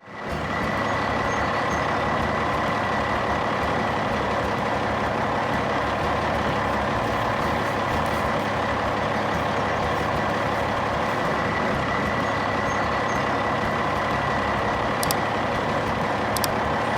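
Heavy vehicle engine running steadily: a constant, even drone with a faint whine in it. Two faint clicks near the end.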